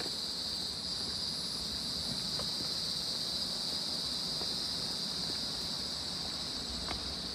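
Steady, unbroken high-pitched drone of a tropical insect chorus, crickets or cicadas, over a low rush of water from a waterfall ahead.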